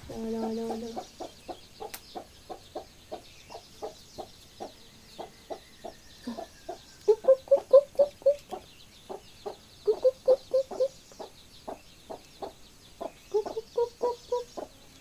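Chickens clucking: a steady run of short clucks, about three or four a second, with louder spells of quicker clucking about halfway through and again near the end.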